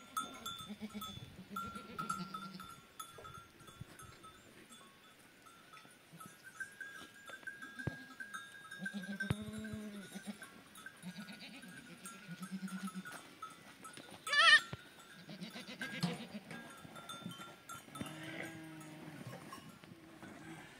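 Sheep and goats bleating on and off, with one loud, high-pitched call about fourteen seconds in. A faint steady ringing runs beneath.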